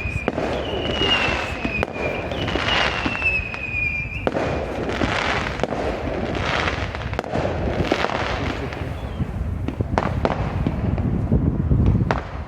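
Fireworks display going off: continuous crackling and popping with repeated bangs, and a couple of sharper bangs in the last few seconds.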